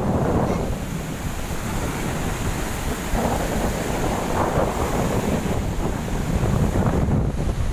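Large storm waves surging and breaking, with strong wind buffeting the microphone in a heavy low rumble. The rush of water swells louder a couple of times.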